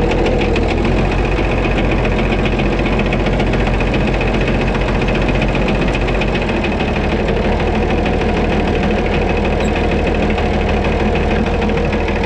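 White 2-155 tractor's Hercules diesel engine running steadily with a regular knock from inside the engine. Its low note shifts slightly about halfway through. The owner hears it missing a little and says something inside is not right; it is due for engine work.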